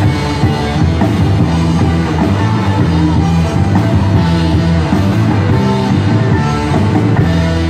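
Live rock band playing loud: electric guitars and a drum kit.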